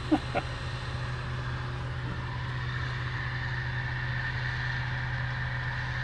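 Steady engine hum, low and unchanging in pitch, with a faint constant whine above it.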